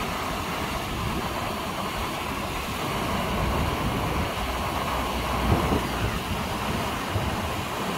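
Steady rush of water cascading over the rock ledges of an artificial waterfall.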